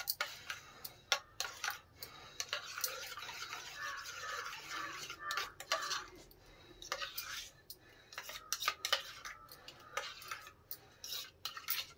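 A metal spoon stirring hot milk in a small steel cup to cool it. It makes rapid, uneven clinks and scraping against the cup's sides, with a steadier stretch of scraping in the middle.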